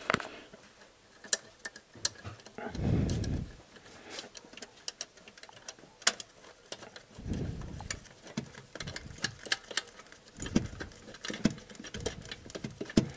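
Irregular light metal clicks and ticks as a short cylinder-head bolt is wiggled and turned by hand to start its thread through the Renault Logan's cylinder head into the engine block, with a few dull knocks in between.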